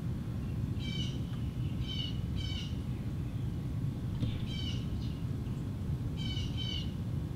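A bird calling: about six short calls, several coming in quick pairs, over a steady low background rumble.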